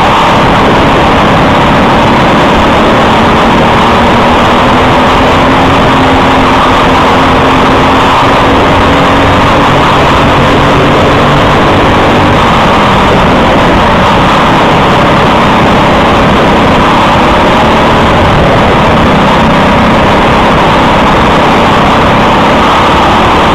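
Briggs & Stratton LO206 single-cylinder four-stroke kart engine running at race pace, close to the microphone and near the top of the recording's loudness. Its pitch rises and falls as it accelerates and slows: climbing in the first few seconds, dropping about halfway through, and climbing again near the end.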